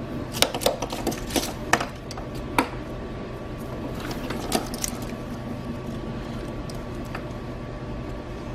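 ALH TDI wiring harness being handled: wires and plastic connectors rustle and click sharply, a cluster in the first three seconds and one more about halfway through, over a steady background hum.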